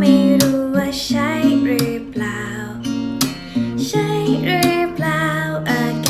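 A song: strummed acoustic guitar with a singing voice over it.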